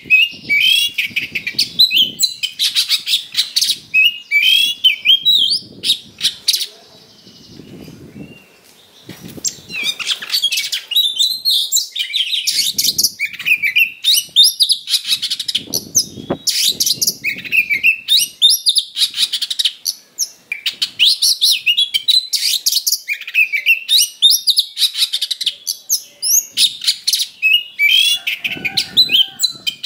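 Oriental magpie-robin singing a loud, fast, near-continuous song of sharp whistles, chirps and trills packed with mimicked phrases, in an aggressive fighting song. The song drops away briefly about seven seconds in, then resumes.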